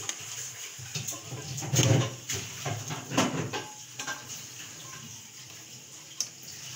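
Steel ladle stirring a thin curry in an aluminium cooking pot: the liquid sloshes and the ladle scrapes and clanks against the pot, loudest about two and three seconds in, then quieter.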